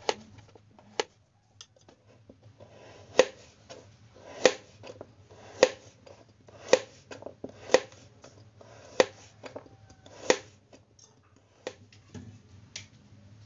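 Kitchen knife slicing a carrot into rounds on a plastic cutting board, the blade knocking sharply on the board with each cut, about one cut a second. The cuts are softer at first and strongest through the middle.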